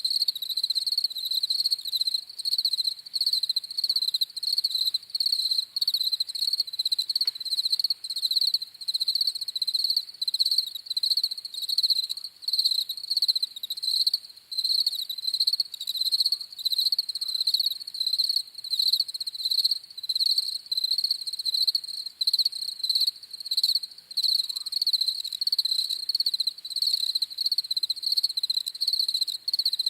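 Crickets chirping: one high, steady-pitched chirp repeated in quick, even pulses without a break.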